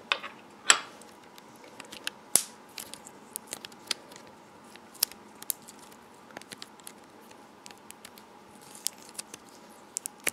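Hands stretching and kneading a lump of thinking putty: quiet sticky squishing with scattered small clicks and snaps at irregular moments, the sharpest ones under a second in and again about two and a half seconds in.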